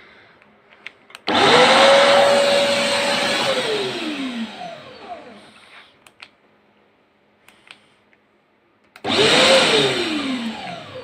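A vacuum suction motor switched on and run for about four seconds, then switched off, its whine falling as it spins down; near the end it is switched on again for about two seconds and winds down the same way. Light clicks and knocks in the pause between.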